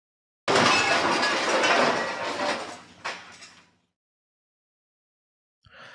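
A sudden rushing, scraping noise that starts about half a second in and fades away over about three seconds, with a sharp click about three seconds in, like a sliding door sound effect.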